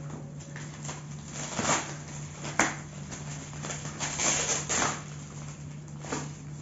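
Plastic wrapping rustling and crinkling in short bursts as it is pulled off the wrapped legs of an office chair's star base, with one sharp click about two and a half seconds in.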